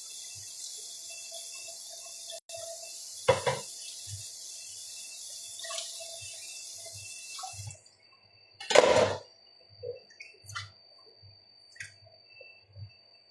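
Kitchen tap running in a steady stream, turned off about two-thirds of the way through, followed by one loud splash or clatter at the sink and a few light knocks.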